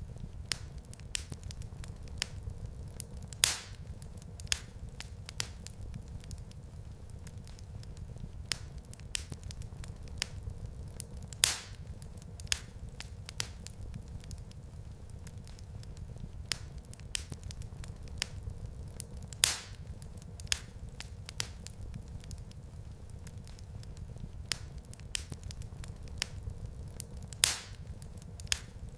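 Wood fire crackling in a fireplace: a steady low rumble of flame with frequent small snaps and a louder pop about every eight seconds.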